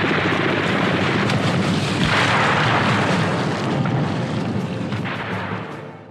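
Battle noise: a dense, heavy rumble laced with crackling gunfire and booms, swelling about two seconds in and fading out near the end.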